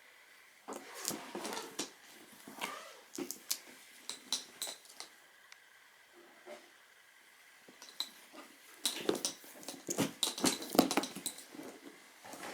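Leather briefcase being handled: irregular clicks and rustles in two busy spells, one starting about a second in and a louder one near the end, with a quieter stretch between.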